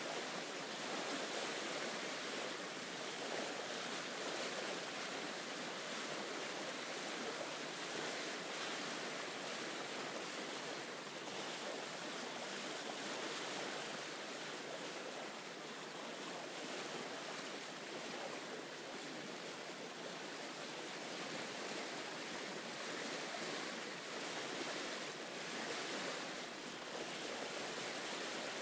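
Steady rushing noise, like ocean surf or hiss, with only slight slow swells in level.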